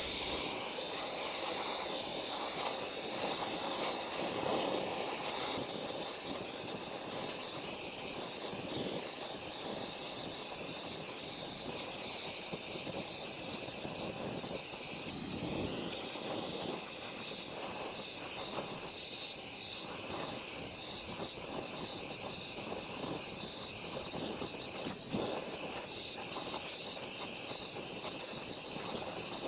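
Gas torch flame hissing steadily as it melts copper scrap in a ceramic crucible, with a single short knock near the end.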